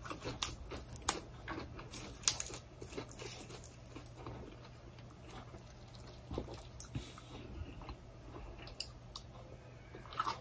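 Small crackles and clicks of fresh herb leaves being plucked off their stems by hand, thinning out to a few faint handling and chewing sounds.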